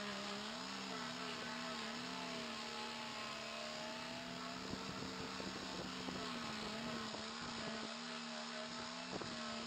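Electric random orbital sander running while sanding an epoxy-resin and redgum table top. It makes a steady motor hum that wavers a little in pitch as the pad is pressed and moved over the surface.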